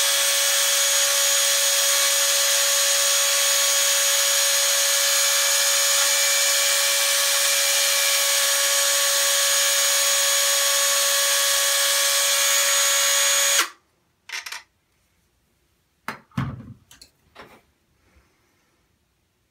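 Dremel rotary tool running at a steady whine as it cuts down a yellow plastic propeller blade, switched off suddenly about three-quarters of the way through. A few light knocks of handling follow.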